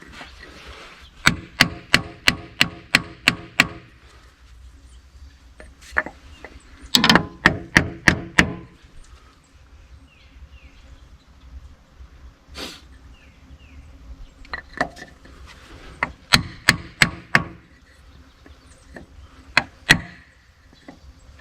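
Hammer striking a block of wood held against the seized diesel fuel injectors of a Ford 555 backhoe, to knock them loose. The blows come in quick bursts of sharp strikes, about three a second, with pauses between the bursts.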